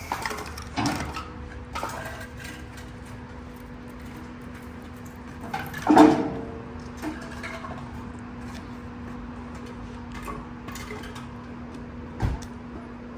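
Scattered clicks and knocks, a loud clunk about six seconds in followed by a steady low hum, and a sharp thump near the end.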